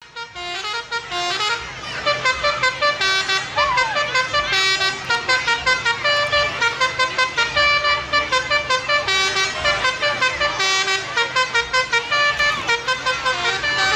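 Telolet horn, a multi-tone musical vehicle horn, playing a quick tune of short notes that step up and down in pitch.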